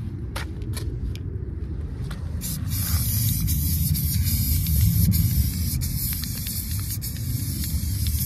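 Aerosol spray paint can spraying: a steady hiss that begins about two and a half seconds in and keeps going, over a low rumble. A few short clicks come before the spray starts.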